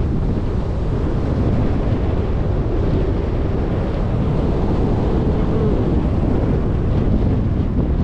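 Wind buffeting the microphone of a camera riding on a moving bicycle: a steady, heavy low rumble.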